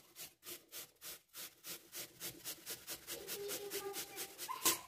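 Peeled apple rubbed up and down a stainless-steel grater: rhythmic rasping strokes, about four to five a second, getting louder toward the end.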